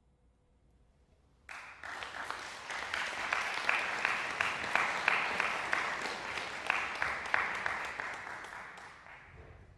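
Audience applause that breaks out suddenly after a silence, with a few sharp claps standing out, and dies away over the last few seconds.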